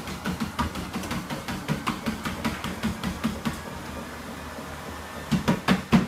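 Feet thudding on a running Reebok treadmill's belt, about three footfalls a second over a steady low hum. Near the end the footfalls come louder and quicker as the runner stumbles.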